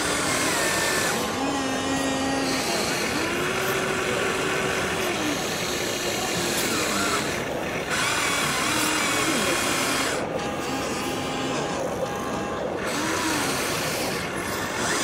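Small electric motors of radio-controlled model machines whining, each rising and falling in pitch over a second or two as the models drive and work their buckets, over a steady noisy background.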